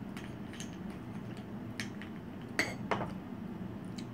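A spoon clinking and scraping against a bowl and side dishes as toppings are spooned onto shaved ice, light scattered clicks with two louder clinks about two and a half and three seconds in.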